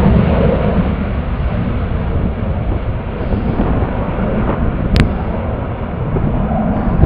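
Jet airliner's engines at takeoff power, a steady heavy noise as the rear-engined jet rolls and lifts off, with wind buffeting the microphone. A single sharp click comes about five seconds in.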